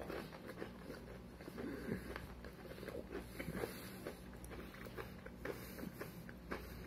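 A person chewing a mouthful of crispy breaded fried chicken: many small, irregular crunches.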